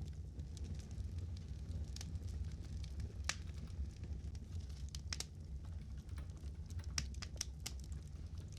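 Fire crackling: irregular sharp pops and snaps over a low, steady rumble.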